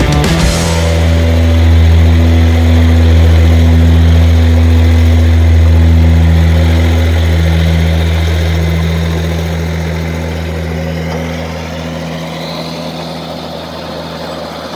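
Tractor diesel engine running at a steady speed while working a disc super seeder in the field, a low even hum that gradually fades over the second half.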